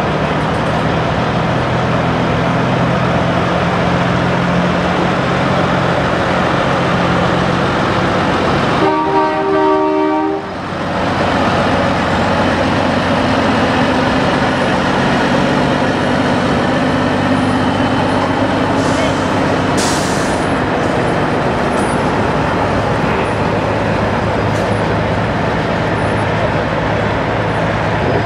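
Peterbilt 379 semi-truck diesel engines running as the trucks roll slowly past. About nine seconds in, an air horn sounds once for about a second and a half. Later a short hiss of air is heard.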